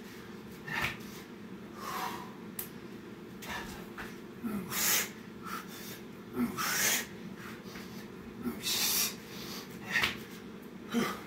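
A man's heavy breathing during exercise: short, forceful breaths about once a second.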